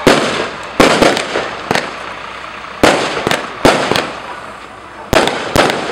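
Fireworks going off: about a dozen sharp bangs in irregular clusters, each with a short echoing tail. The loudest come right at the start and just under a second in.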